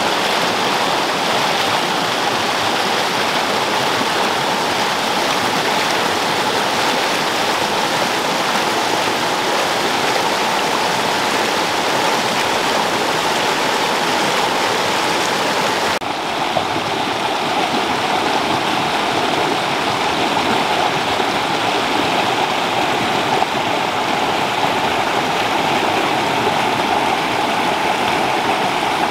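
Fast, shallow rocky stream rushing and splashing over boulders: a steady wash of water noise. About halfway through it changes abruptly to a slightly duller rush.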